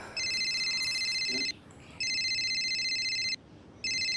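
Telephone ringing with an electronic trill, in rings about a second and a half long with short gaps: two full rings and a third starting near the end.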